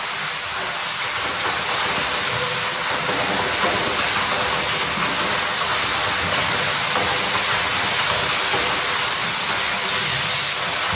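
Water splashing and spraying without a break as a gorilla spins and sweeps its arms through a plastic wading pool.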